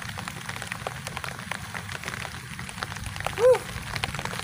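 Rain falling on open water, an even hiss with many small, sharp drop ticks. About three and a half seconds in, a single short pitched call rises and falls.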